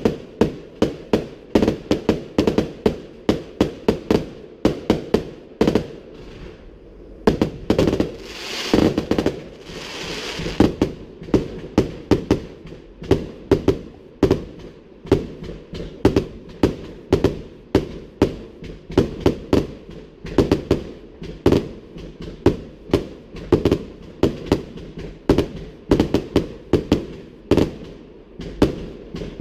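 A fireworks display: shells bursting in a rapid, continuous run of booms, several a second, with a stretch of crackle about a third of the way through.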